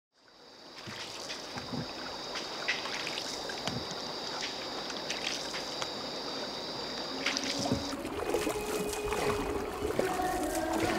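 River water lapping and trickling against a wooden boat as it is poled along, with scattered light knocks of the pole and paddle on the hull. A steady high-pitched whine runs under it and stops about eight seconds in, after which a few steady lower tones come in.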